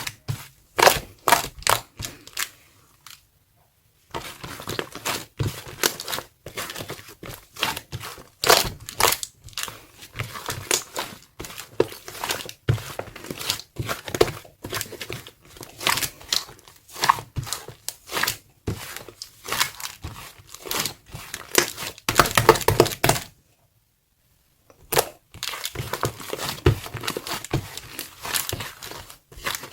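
Thick, sticky white slime being squished and stretched by hand, giving dense runs of sticky crackling pops and clicks. It stops briefly twice, once a few seconds in and again about two thirds of the way through.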